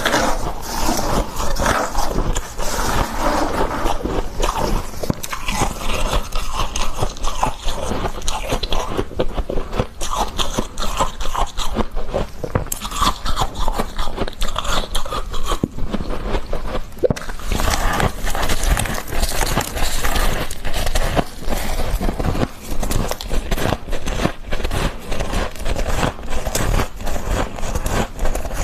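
Close-miked biting and chewing of freezer frost: a dense, continuous crunching and crackling of icy frost between the teeth.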